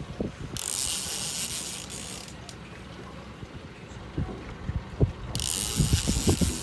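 Heavy-duty level-wind fishing reel making a ratcheting buzz twice, each about a second and a half long, while a big paddlefish is fought on the line. Low knocks of handling come near the end.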